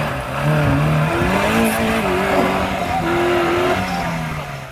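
Maruti Suzuki Gypsy's four-cylinder petrol engine revving hard, rising in pitch over the first couple of seconds and dropping back toward the end, with a loud rushing noise over it.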